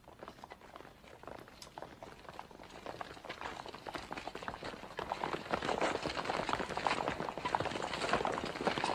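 Footsteps of a large crowd walking on a hard floor: many overlapping steps that grow steadily louder.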